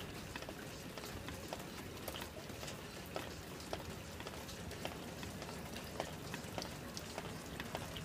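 Faint steady hiss with many irregular small ticks and clicks, heard through a phone security camera's microphone.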